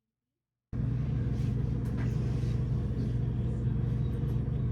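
Brief dead silence, then a steady low rumble like a car's road and engine noise heard from inside the cabin.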